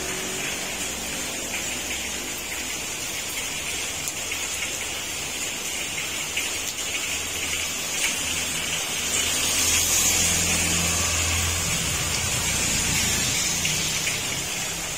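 Heavy rain pouring down steadily, swelling a little louder about two-thirds of the way through, with a low steady hum underneath.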